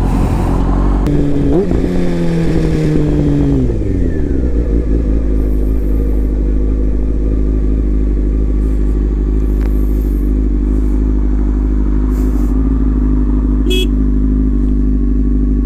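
Sport motorcycle's engine heard from the rider's seat, its revs falling over the first few seconds as it slows, then running steadily at low revs.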